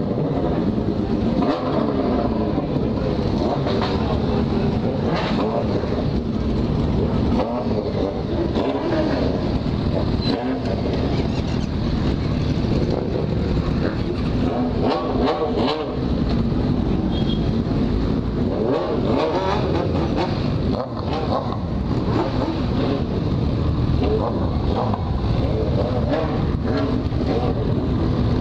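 A crowd of motorcycle engines idling and revving as the pack pulls away at walking pace, with the nearest being a Yamaha XJ6's inline-four. The engine notes rise and fall throughout.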